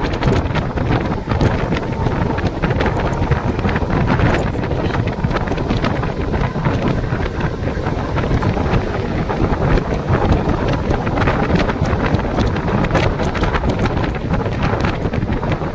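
Wind buffeting the microphone at the open door of a moving Mumbai suburban local train, over the steady running rumble of the electric train on the rails. Short clicks and rattles come scattered throughout.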